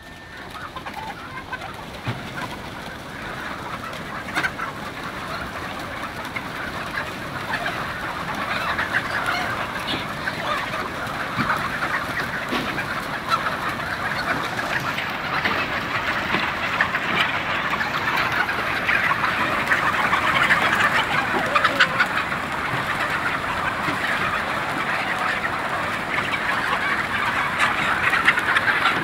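A large flock of chickens clucking and calling all at once, a dense overlapping din that grows steadily louder as more birds pour out.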